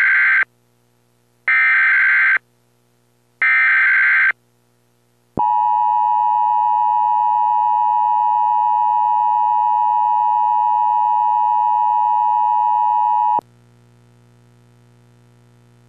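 Emergency Alert System header: three bursts of digital SAME data tones about a second apart, the first already under way, then a steady single-pitch attention tone held for about eight seconds before cutting off sharply. After the tone only a faint low hum remains.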